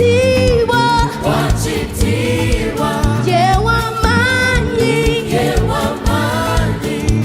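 Gospel song sung by a choir over a band, with bass and drums.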